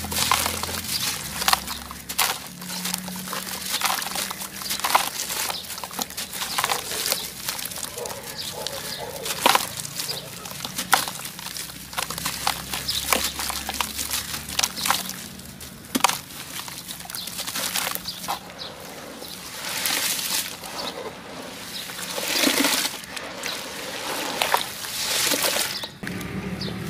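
Hands crushing and crumbling dry, dusty clumps: dense crunching and crackling, giving way in the last several seconds to softer swells of powdery rubbing.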